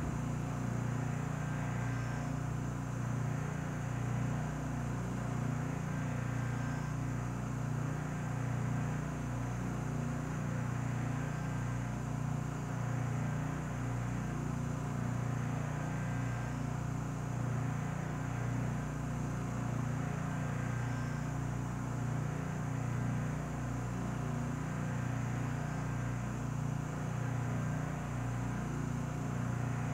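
Steady low hum of an SST 2200 Turbo vacuum furnace running under vacuum while it cools with the heater off, its vacuum pumps holding the chamber at about 75 millitorr. A faint short high tone repeats about every four and a half seconds.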